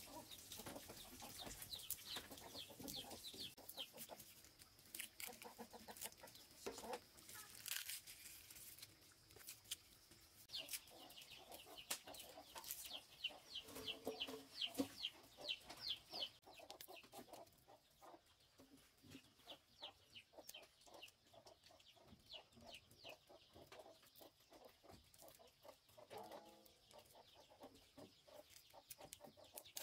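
Chickens clucking faintly, with repeated short high calls, over the soft crackle and clicks of dry garlic skins being peeled by hand.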